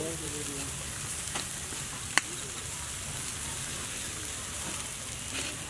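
Meat sizzling steadily as it cooks over the fire, with one sharp snap about two seconds in.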